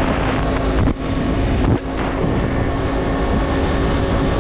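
KTM 125 single-cylinder motorcycle engine running on the road, with wind rushing over the microphone. The engine note briefly drops off twice, about one and two seconds in.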